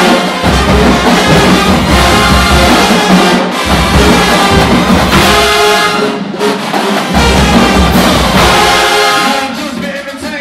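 Marching band playing loudly: a brass section of sousaphones, trumpets and trombones over a snare and bass drum line. The band breaks off near the end.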